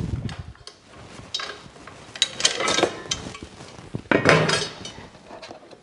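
Parts of a Power XL Smokeless Grill Pro being taken apart: the metal grill grate lifted out and set down, making a few knocks and clinks, the loudest about four seconds in.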